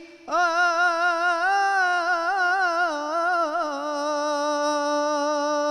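A male singer holds one long sung note in an Egyptian Arabic song, voice through a handheld microphone, with wavering ornaments in the middle before it settles and holds steady.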